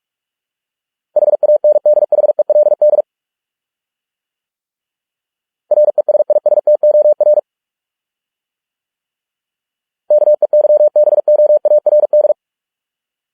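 Morse code at 45 words per minute, keyed as a single steady beep tone: three quick words of dots and dashes, each lasting about two seconds, with a few seconds of silence between them.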